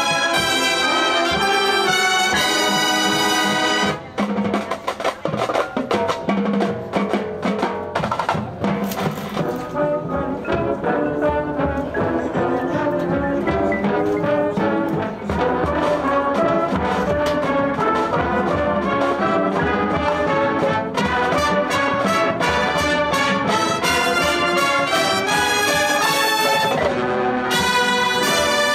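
A drum and bugle corps playing: full, held brass chords, then a long percussion-driven passage with quieter horns, building back to loud sustained brass chords near the end.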